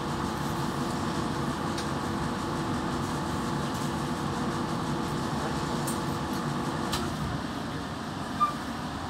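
Steady low rumble and hum inside a passenger train carriage rolling slowly along the station platform, easing a little about seven seconds in. A short, sharp high blip stands out near the end.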